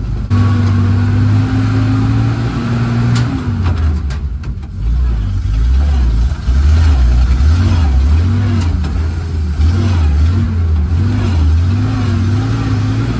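1948 Dodge Power Wagon's flathead straight-six engine, heard from inside the cab while the truck is driven. It runs at steady revs, and the revs drop about three seconds in as for a gear change. The engine then pulls on with its pitch wavering up and down.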